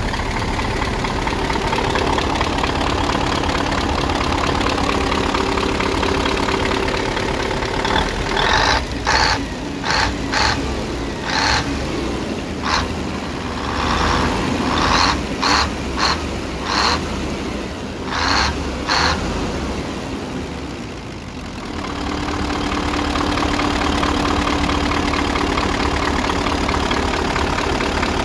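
Iveco 8280.42 V8 diesel engine idling steadily, then revved in a dozen short blips over about ten seconds. After a brief dip in loudness it settles back to a steady idle.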